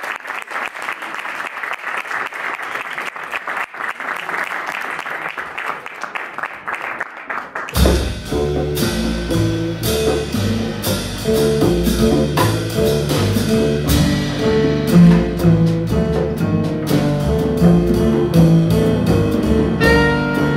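Audience applauding. About eight seconds in, a live jazz band starts up sharply: double bass, drum kit, congas, piano, guitar and tenor saxophone.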